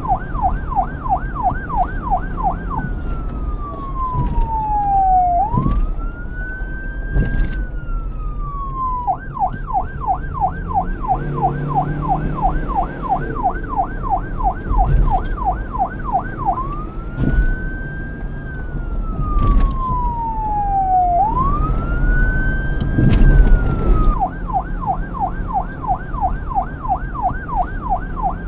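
Police car electronic siren switching between a fast yelp, about six up-and-down cycles a second, and a slow wail that falls and rises over two to three seconds each way. A low rumble runs underneath, with a couple of short sharp knocks.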